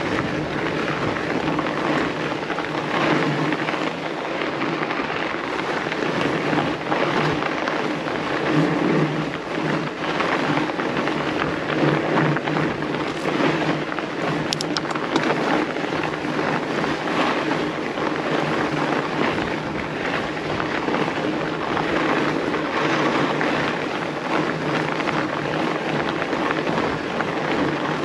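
Fat bike tyres rolling over packed snow with a steady crunching hiss.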